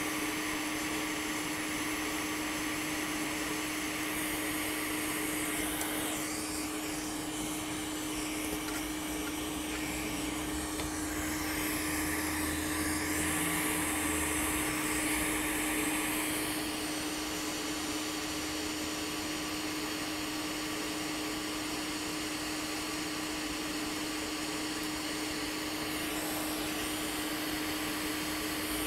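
Hot air rework station blowing steadily: a constant low hum under a rush of air, its hiss shifting in tone for a few seconds around the middle, when it also gets slightly louder.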